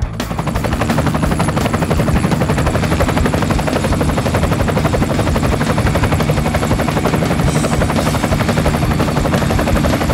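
Helicopter rotor sound: a rapid, steady chopping that starts abruptly and runs on without change.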